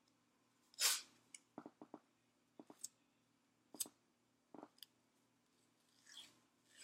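White athletic tape being pulled off the roll and laid around the foot: a series of short ripping, crackling bursts, the loudest about a second in.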